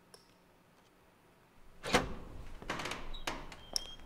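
A door opening: a loud clunk about two seconds in, then a run of knocks and clicks with brief high squeaks near the end.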